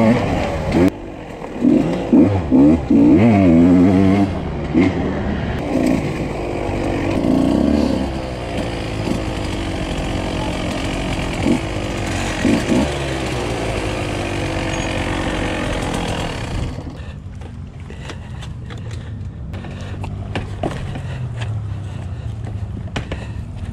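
Husqvarna TE 150 two-stroke single-cylinder engine revving hard, its pitch swinging up and down repeatedly, then running steadier and lower, and about sixteen seconds in dropping to a quiet low idle with light clicks.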